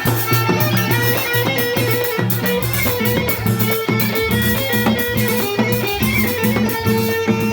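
Live amplified music: plucked strings over a steady, fast drum beat, with no singing yet.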